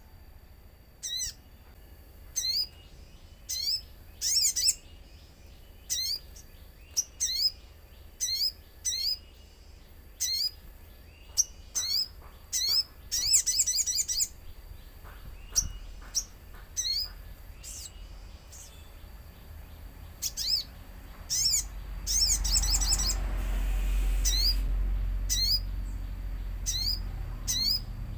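Little spiderhunter (sogon) calling: short, sharp, high chirps repeated about once a second, with a faster run of notes about halfway through. A rush of noise with a low rumble swells about three-quarters of the way through.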